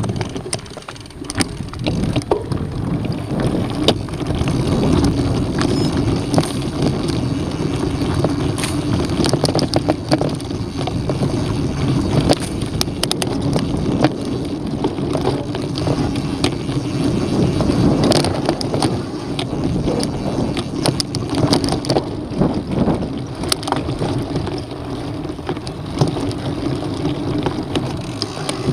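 Mountain bike riding over a rough dirt and gravel trail, heard from a camera on the bike: a steady rumble of knobby tyres on the dirt with frequent clicks and rattles from the bike and loose stones, and some wind on the microphone.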